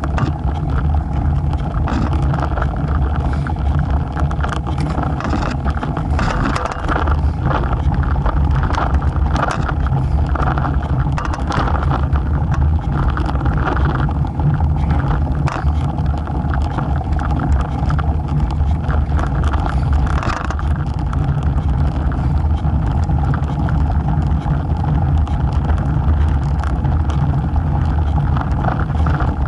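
Road bike rolling along rough, cracked asphalt: a steady rumble of the tyre and wind on a bike-mounted camera's microphone, with scattered short knocks from bumps in the road surface.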